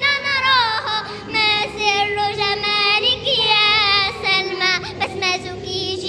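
Young girls singing a children's song in high voices, with long held and gliding notes.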